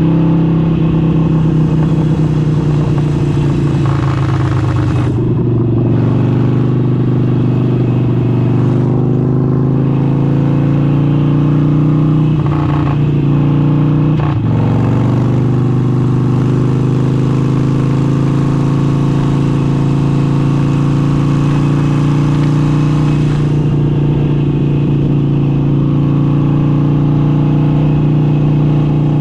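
Harley-Davidson Forty-Eight's air-cooled 1200 cc V-twin running steadily under way through an aftermarket exhaust. Its pitch briefly drops and comes back up a few times as the throttle is eased and reopened.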